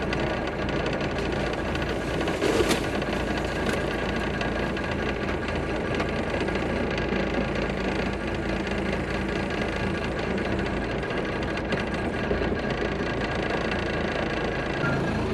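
M35-series deuce-and-a-half military truck's diesel engine running steadily under way, a constant drone with road and drivetrain noise.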